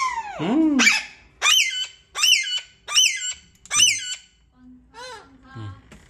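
Rose-ringed parakeet calling: a long falling call, then four sharp, high screeches in an even row about three-quarters of a second apart, then a few softer calls near the end.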